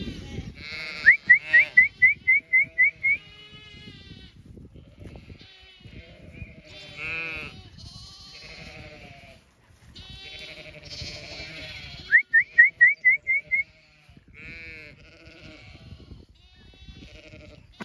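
Zwartbles ewes and lambs bleating on and off, with wavering calls. Two runs of quick, sharp high chirps, about four a second, come about a second in and again about twelve seconds in, and are the loudest sounds.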